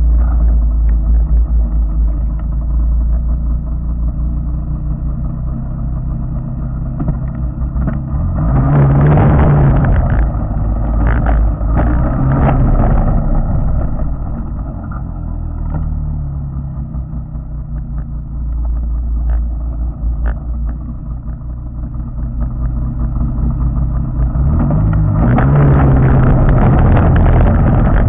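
1992 Arctic Cat Panther two-stroke snowmobile engine running, heard through a waterproof camera case on the back of the sled, which muffles it so that it sounds like a four-stroke. The engine surges louder about eight seconds in and again near the end.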